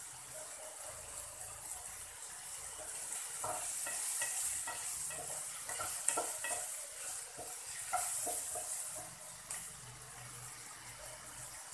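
Sliced mushrooms frying in oil in a nonstick pan, a steady sizzle. In the middle a wooden spatula stirs them, with a run of scrapes and light knocks against the pan.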